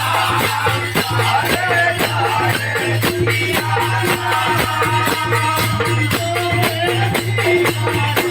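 Devotional bhajan music: fast, even strokes of shaken percussion over a steady low drone, with a wavering melody line.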